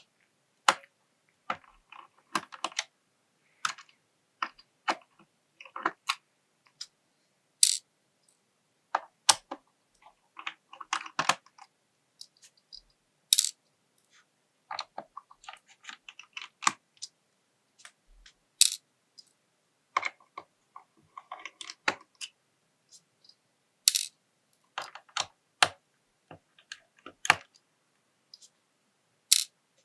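Small screws being unscrewed from a Wooting 2 keyboard's top plate with a JIS size 0 screwdriver: irregular sharp clicks and light metallic clinks, sometimes single, sometimes in quick clusters, a second or few apart.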